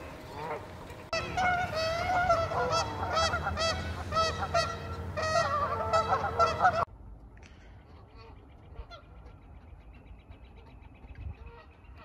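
Geese honking, many loud calls in quick succession, cutting off abruptly about seven seconds in. After that only faint background remains, with some faint high chirping.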